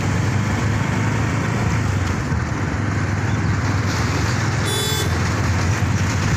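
Steady rumble of engine and road noise from a moving road vehicle, with a short high-pitched tone of several notes about five seconds in.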